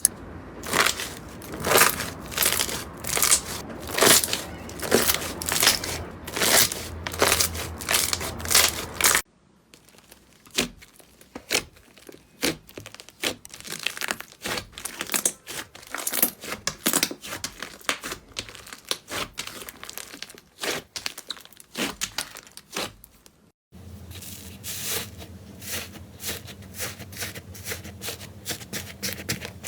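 Slime being worked by hand: a dense run of crackly, crinkling pops and clicks. The sound changes abruptly about nine seconds in, where it gets quieter and sparser, and again near twenty-three seconds, where it comes back closer and busier.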